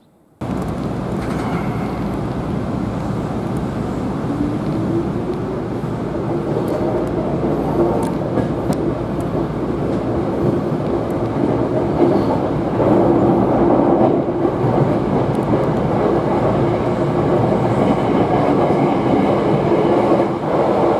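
Electric commuter train running past on the rails: a loud, steady rush of wheel and track noise with a held motor whine. It starts suddenly about half a second in.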